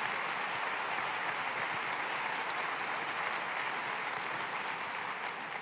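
Audience applauding, a steady clatter of many hands clapping that eases off slightly near the end.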